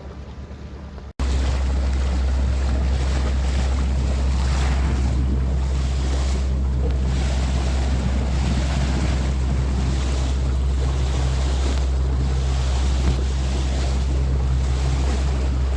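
Sport-fishing boat's engine running steadily underway, a constant low drone, with wind buffeting the microphone and water rushing past. It starts abruptly about a second in.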